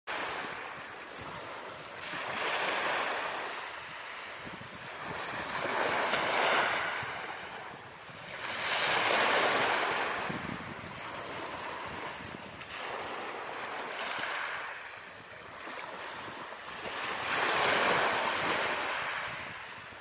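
Ocean surf sound effect: waves washing in and drawing back, swelling and fading every few seconds.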